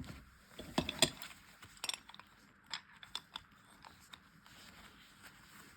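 Scattered light clicks and taps of an aluminum adjustable wrench being handled and fitted onto a large aluminum fitting, a few per second at first and thinning out later.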